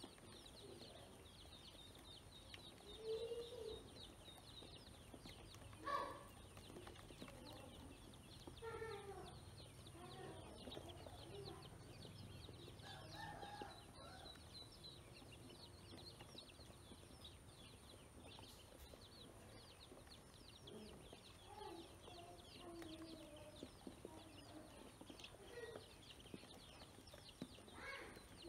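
Domestic ducklings peeping in a steady, faint chatter as they feed, with scattered lower clucking fowl calls, the loudest about three and six seconds in.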